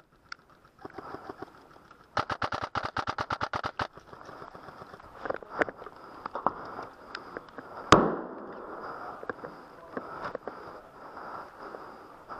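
Airsoft rifle fire: a rapid burst of about seventeen sharp shots in under two seconds, then scattered single shots and one louder crack about eight seconds in. A faint steady high whine runs underneath.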